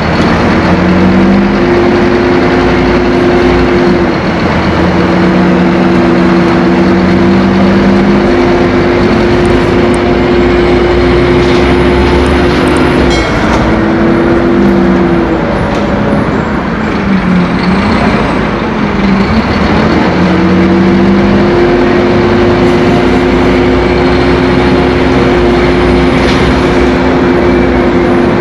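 Scania K-270 bus's five-cylinder inline turbodiesel engine running loud under load, its growl holding a steady pitch and then dropping away and coming back several times.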